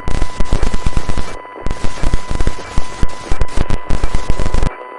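A rapid, loud series of sharp cracks, several a second, like automatic gunfire. It pauses briefly about a second and a half in and cuts off abruptly near the end, leaving a faint hiss. A steady high tone runs under the cracks.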